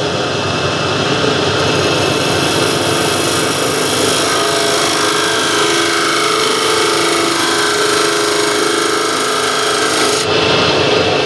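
Wood lathe running while an old butcher knife, used as a scraper, cuts into the spinning wooden blank: a steady rasping scrape over the machine's running.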